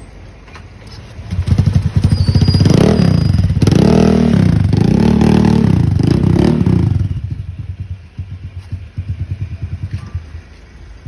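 Motorcycle engine revved up about a second in, rising and falling in pitch four or so times. It then drops back to a quieter, evenly pulsing idle.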